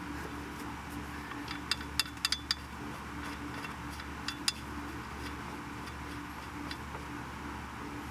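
A few sharp metal clicks and clinks, bunched about two seconds in and again about four seconds in, from hands working bolts into a belt tensioner's bracket. A steady low hum runs underneath.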